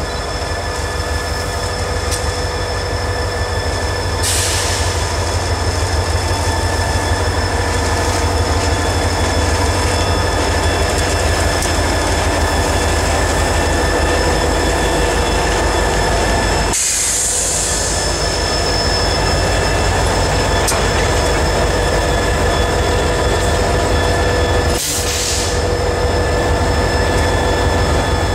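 CSX EMD four-axle diesel locomotives (GP40-2s and a GP38-2) rolling slowly past, their engines giving a steady low rumble, with steady squealing from the wheels on the rails. Three short hisses come through, at about 4, 17 and 25 seconds in.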